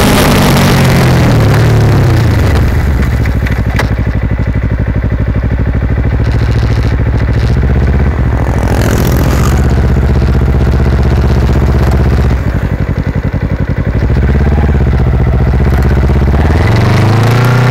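Kawasaki Ninja parallel-twin engine through a Yoshimura carbon slip-on muffler, heard right beside the muffler while riding. The revs fall away at first, then the engine runs at low revs with a loud, low, pulsing exhaust note, and near the end it revs up again as the bike accelerates.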